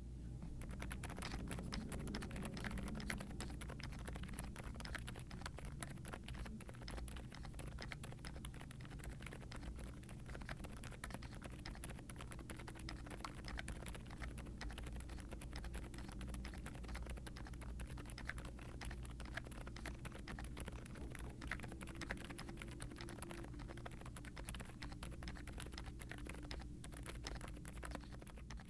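Steady, rapid typing on a Meletrix Zoom75 mechanical keyboard. It has Outemu Silent Lemon V3 silent tactile switches (PA66 housings, POM stems with TPU dampening inserts), a polycarbonate plate, case and plate foam, and doubleshot ABS keycaps, giving dampened, near-silent keystrokes.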